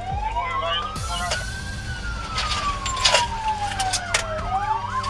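Police car siren wailing, its pitch rising slowly, falling and rising again, with a faster warbling yelp near the start and again near the end. A few sharp knocks come in the middle.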